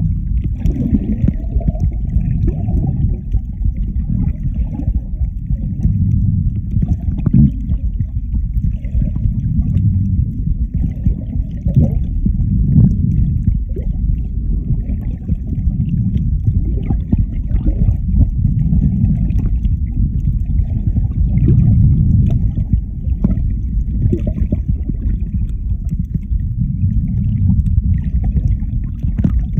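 Muffled underwater noise picked up by a phone held below the surface while swimming: a dull churning rumble of water moving past the microphone, swelling and fading every few seconds, with a few short clicks.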